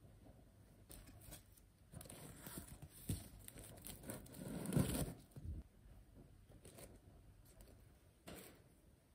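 Close-up rustling and tearing handling sounds, irregular, swelling to the loudest scrape about five seconds in, with a shorter burst near the end.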